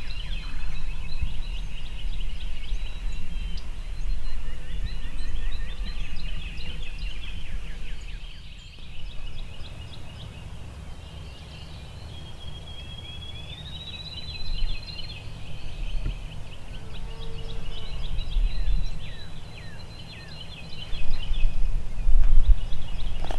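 Several songbirds singing in spring woods, many overlapping chirps, trills and whistled notes, over a low rumble that grows louder near the end.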